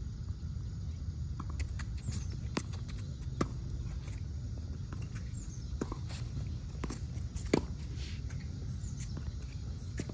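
Tennis ball being hit and bouncing on an outdoor hard court: scattered sharp pops of racket strikes and bounces, the loudest about seven and a half seconds in, over a steady low rumble.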